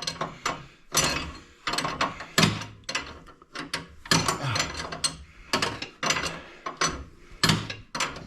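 Hand ratchet wrench clicking in repeated strokes, turning a threaded steering part such as a tie rod along its long threads.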